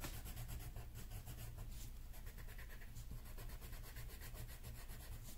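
Green colored pencil scratching on drawing paper in quick back-and-forth strokes, pressed hard to lay down darker shading, over a faint low hum.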